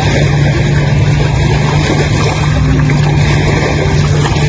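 A steady engine drone with a constant low hum under an even rushing noise, unchanging throughout.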